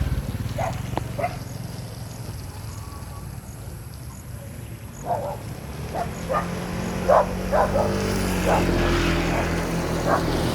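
A dog barking over and over in short, sharp barks, starting about halfway through, over a steady low motor hum.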